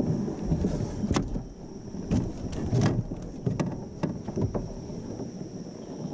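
Irregular knocks, thumps and rustles of a just-caught largemouth bass and tackle being handled in a plastic kayak, over a steady high insect drone.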